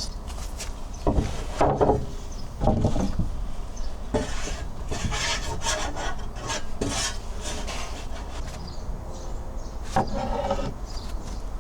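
Rough scraping and rubbing sounds in several irregular bouts, with a longer scratchy stretch in the middle.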